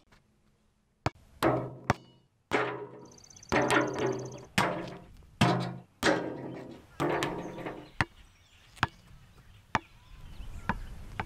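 A basketball repeatedly hitting the backboard and rim and bouncing on an asphalt court: about a dozen hollow thuds at irregular spacing, each with a short ringing tail.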